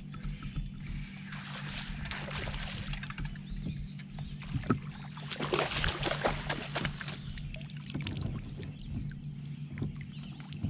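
Fishing kayak on open water: splashing and knocking sounds on and around the hull, strongest in two stretches, over a low steady hum.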